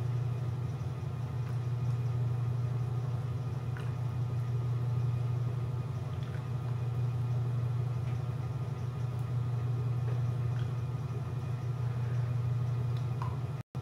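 Steady low hum, like a motor or mains-powered appliance running, with a few faint light ticks over it; the sound cuts out for an instant near the end.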